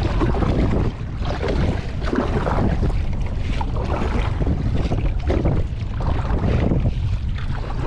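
Wind buffeting the microphone over the splash and swish of kayak paddle strokes in choppy water, a surge every second or two.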